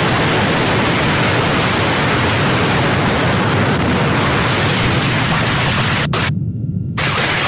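Loud, steady rushing roar of a skyscraper collapse with its billowing dust cloud, with no separate bangs. It cuts out for about a second near the end.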